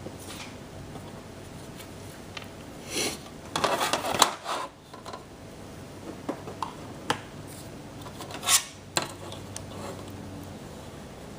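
Small hard objects clinking and rattling in a few short bursts, loudest about a third of the way in and again near the three-quarter mark, with single clicks between, over a faint steady hum.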